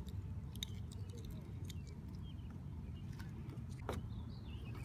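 Small metallic clicks and ticks of fishing hooks and bits of scrap being picked off a magnet-fishing magnet, with a sharper knock about four seconds in as the magnet is set down on the wooden dock rail, over a steady low rumble.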